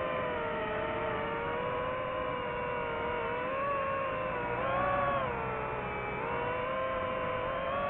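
DJI FPV drone's propellers whining steadily, the pitch drifting with motor speed: it rises briefly a little past halfway, then dips and settles back.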